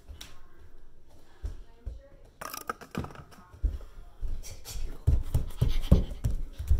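Bare footsteps thudding on a wooden floor, with a run of thuds in the last two seconds, and a short hissy burst about two and a half seconds in.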